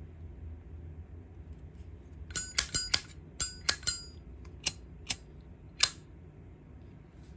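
Brass Zippo lighters being handled: about a dozen sharp metallic clicks and clinks with a brief ring, in quick clusters over a few seconds.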